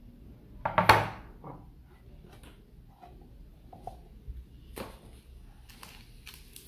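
Packaging being handled: a hexagonal metal watch tin pulled from its cardboard box and set down on a desk, with one loud knock and rustle about a second in, then several lighter knocks and taps.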